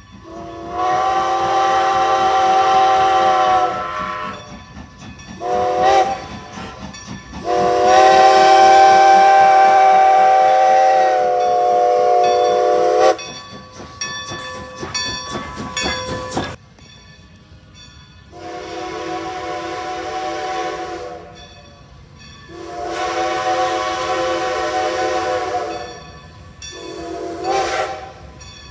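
Steam locomotive whistle blown in six blasts of different lengths, long and short, each with a hiss of steam. Between the third and fourth blasts there are a few seconds of rapid clatter.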